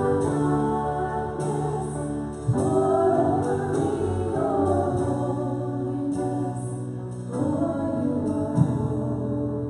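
Two women singing a slow worship song into microphones, with live piano, bass guitar and drum accompaniment, holding long notes.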